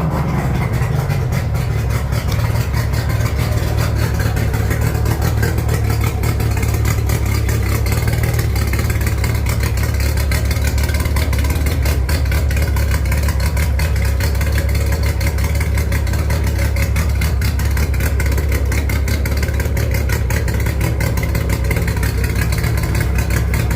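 1994 Mercury 60/45 jet-drive outboard, a three-cylinder two-stroke, running. Its revs fall away right at the start, then it runs at a steady idle.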